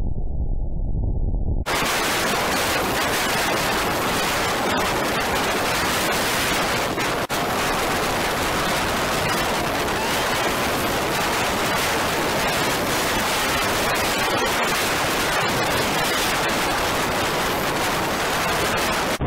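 Loud, steady rushing hiss of wind on the microphone of a camera mounted on a moving motorcycle, with no engine note standing out. It drops out for a moment about two seconds in and again about seven seconds in.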